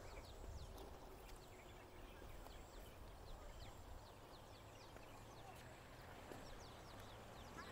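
Near silence: faint outdoor ambience over rice paddies, with many short high chirps scattered throughout, a thin steady high tone, and a low hum that comes in about halfway through.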